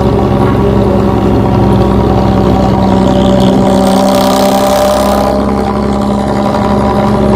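Bus engine running steadily through a loud 'ngorok' aftermarket exhaust, a deep growling drone that holds one pitch. A hiss rises over it about three seconds in and lasts about two seconds.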